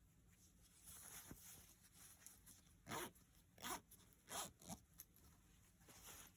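Quiet handling noise: four short scrapes or rustles, about three to five seconds in.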